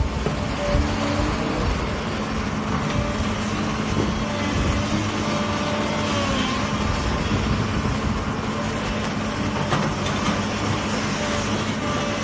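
Diesel engine of a Case crawler excavator running steadily as the machine works, a constant mechanical din with a steady hum and a higher whine over it.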